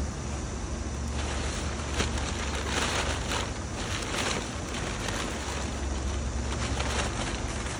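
Brown kraft packing paper and plastic-wrapped parts rustling and crinkling as a cardboard box is unpacked by hand, busiest a few seconds in, over a steady low hum.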